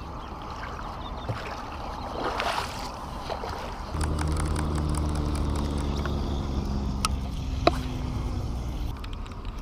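Rustling and knocking of handling for the first few seconds, then a boat motor starts running steadily about four seconds in, a low even hum, with two sharp clicks near the end.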